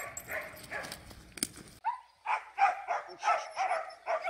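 Russian Laika hunting dogs yipping and whining, first faintly over rustling, then, after a break near the middle, a quick run of short, high yelping barks, about three a second.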